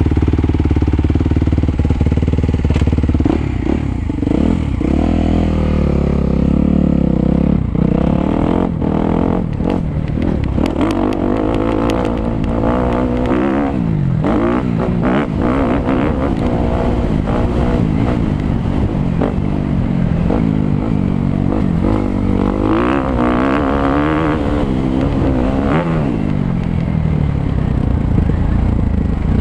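Suzuki 250 motocross bike engine being ridden hard, its pitch rising and falling over and over as the throttle opens and shuts. Short clattering knocks come in about a third of the way through.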